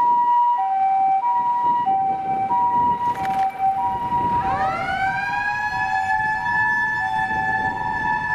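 Fire engine's two-tone "pii-poo" electronic siren alternating between a high and a low note. About four and a half seconds in, its mechanical motor siren winds up in a rising wail and then holds a steady howl over the two-tone.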